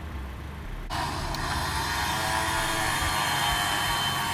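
Warn Zeon 10 electric winch starts about a second in and runs steadily, a whine of several tones. It is winding in synthetic rope under load on a double-line pull, dragging a Jeep Wrangler out of deep mud.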